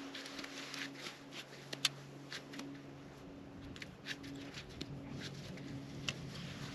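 Quiet scattered ticks, clicks and rustles from handling ice-fishing rods, reels and winter clothing, over a faint steady low hum.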